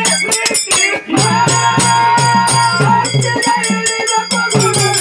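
Live group music: small brass hand cymbals clash in a fast, steady rhythm over a drum, with singing. The sound drops briefly about a second in, then comes back in full.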